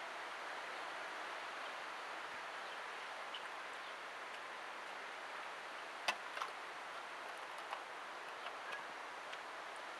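A fork clinking a few times against a metal bowl while noodles are eaten, the sharpest click about six seconds in, over a steady hiss.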